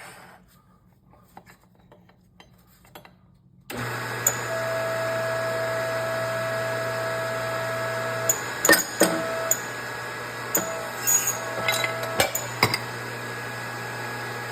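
A powered press motor starts about four seconds in and runs steadily, pushing a long steel bar to drive the pulley bearing out of a TVS supercharger snout housing. Sharp metallic clicks and knocks come through in its second half, and the motor stops near the end.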